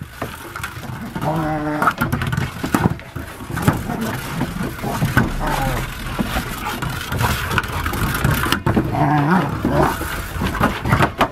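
Dogs pushing a large rubber ball across a wooden deck: a continuous rumble of the ball rolling and bumping over the boards, with claws scrabbling and knocking. Two short pitched dog vocal sounds come about a second and a half in and again about nine seconds in.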